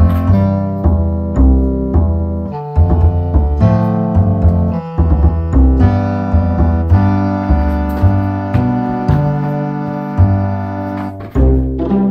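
Background music: a melody of held notes over a low bass line, the notes changing every half second or so.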